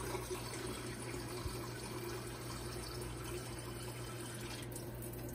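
Water running steadily from a kitchen tap, filling a measuring cup, shut off near the end.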